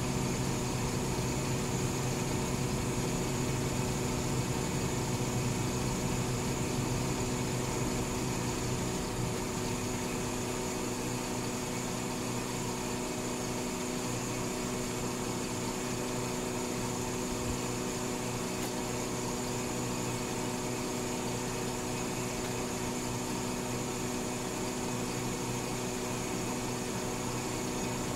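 Garbage truck engine running steadily, a constant mechanical hum with a droning pitch; the lowest part of the hum eases off slightly about nine seconds in.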